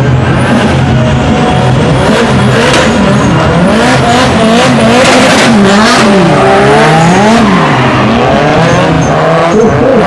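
Drift cars' engines revving hard, pitch swinging up and down over and over as the drivers work the throttle through the slides, with tyres squealing. Loud throughout.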